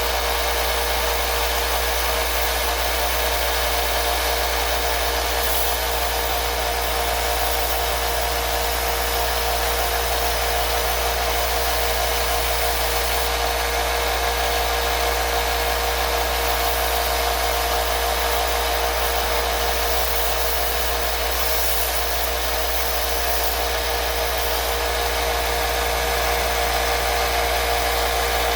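An electric motor whirring steadily without a break, with a low rumble under a steady mid-pitched hum.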